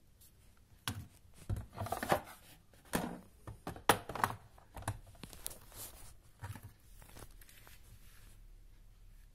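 Handling noise: a run of irregular clicks, knocks and rustles, loudest about two and four seconds in, dying away after about seven seconds, as the phone is moved around a small glass fish tank.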